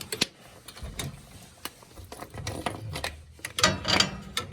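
Irregular mechanical clicks and rattling from hands working the gas boiler's pilot controls during relighting, with a louder cluster of clicks near the end.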